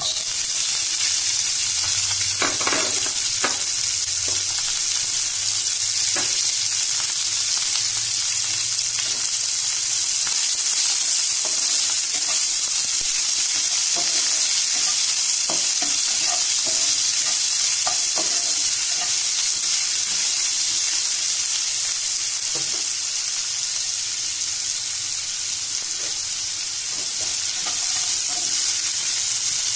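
Chopped onions frying in hot oil with a steady sizzle, while a spatula scrapes and taps against the non-stick pan at irregular intervals as they are stirred.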